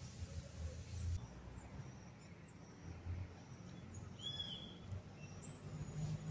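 Faint riverside ambience: an uneven low rumble on the microphone, with a short bird chirp about four seconds in and a few fainter chirps.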